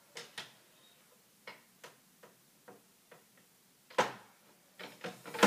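Irregular light clicks and taps, about eight in the first three and a half seconds, then a sharper knock about four seconds in and a louder cluster of knocks near the end.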